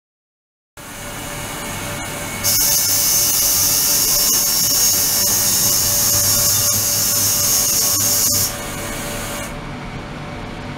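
Ultrasonic cleaning bath running: a steady hiss and hum from the agitated water starts abruptly about a second in. It becomes a much louder, high-pitched hiss for about six seconds, then drops back to a quieter hiss near the end, with a few faint clicks.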